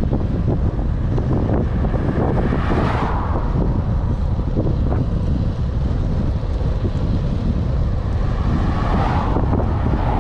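Wind buffeting the microphone of a helmet-mounted camera on a moving bicycle, a steady low rumble, with two louder rushing swells, about three seconds in and near the end.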